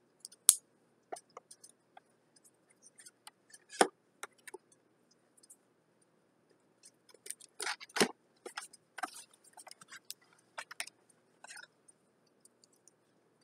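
Hands opening and handling a boxed kit's packaging: irregular small clicks and rustles, with sharper clicks about half a second and four seconds in and a busier patch about eight seconds in.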